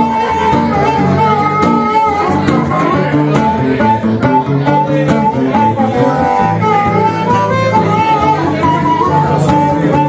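Harmonica played in a neck rack, a bending melody line, over a strummed resonator guitar.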